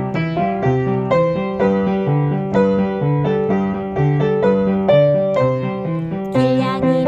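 Instrumental keyboard music, piano-like, with a steady rhythm of chords over a moving bass line. A brighter, higher layer joins near the end.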